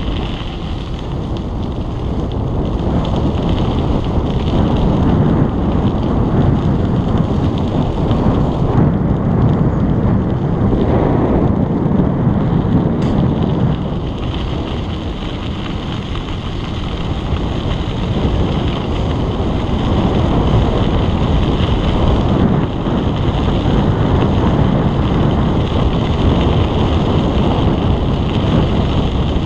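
Wind buffeting a GoPro microphone on a moving bicycle: a loud, steady low rumble that eases off a little twice.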